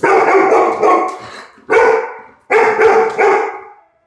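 Labrador retriever barking repeatedly in loud, separate barks a second or so apart, each trailing off: defensive barking at a life-size stuffed toy tiger it takes for a threat.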